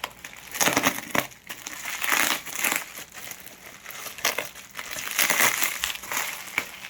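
Packaging being handled and opened: irregular crinkling and rustling in short bursts.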